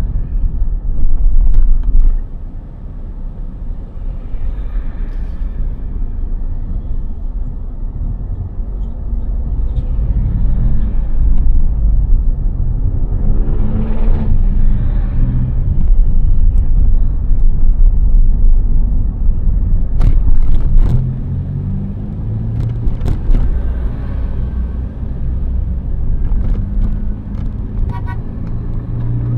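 Road traffic going past: a steady low rumble of vehicle engines and tyres, with one vehicle's engine rising in pitch as it passes about halfway through.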